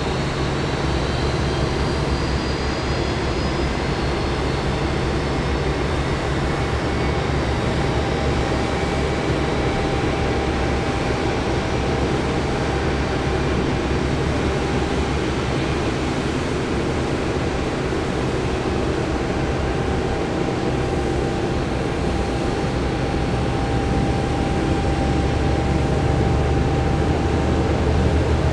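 IAE V2500 turbofan engine of an Airbus A320 running after start: a steady jet roar with a high whine that rises slowly in pitch over the first several seconds, then holds steady. It grows slightly louder near the end.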